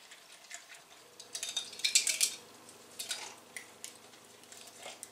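Metal cans clinking and clattering on a workbench while pine cones are rinsed in acetone, with a burst of clatter about a second and a half in. A faint steady hum starts about a second in.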